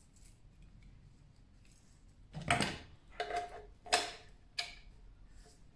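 Pressure-washer quick-release fittings being handled and fitted together: about four sharp clicks and clacks in the second half, the first the loudest.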